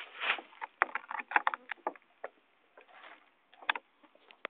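Plastic water bottle crinkling and crackling as it is handled: a quick, irregular run of sharp clicks and short rustles that thins out in the second half.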